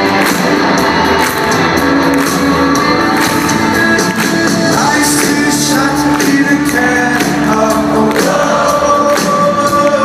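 Rock band playing live in a large hall, heard from within the audience: drums, amplified instruments and singing at a steady, loud level.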